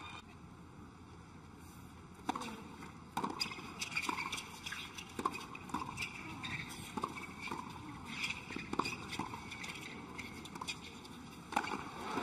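Tennis rally: a string of sharp ball strikes and bounces, irregular and at times close together, starting about two seconds in. Near the end the crowd breaks into cheering and applause at the end of the point.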